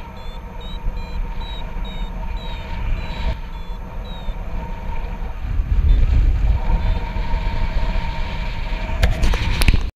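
Wind buffeting the camera microphone of a paraglider in flight, a heavy low rushing with steady whistling tones, gusting strongest about six seconds in. Through the first half, short high beeps repeat about two or three times a second from the pilot's flight variometer. A few sharp knocks come near the end.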